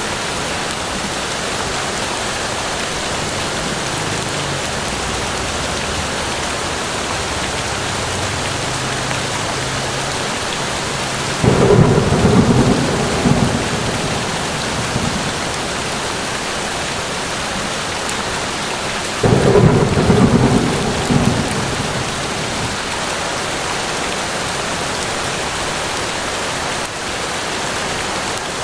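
Steady rain falling, with two rolls of thunder that start suddenly about eleven and nineteen seconds in, each rumbling and fading over a few seconds.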